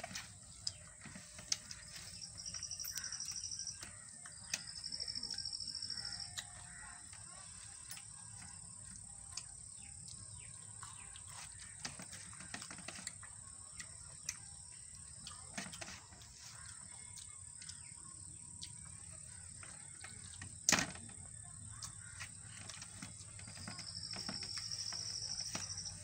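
Eating by hand from a steel plate: fingers mixing and scooping rice and crab gravy, with small wet clicks and chewing, and one sharper clack on the plate about twenty seconds in. Three high-pitched calls of a wild creature, each lasting one and a half to two and a half seconds, come twice near the start and once near the end over a steady thin high hum.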